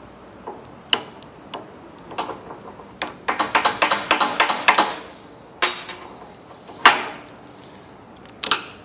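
Small metal parts of a VW Beetle pedal cluster clicking and clinking as they are worked on with a screwdriver: scattered sharp clicks, a quick run of clatter about three to five seconds in, a short ringing ping, and two louder knocks in the last couple of seconds.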